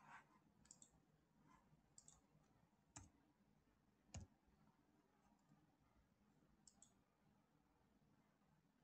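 Faint computer mouse clicks, about half a dozen scattered over a near-silent background, some in quick pairs of press and release.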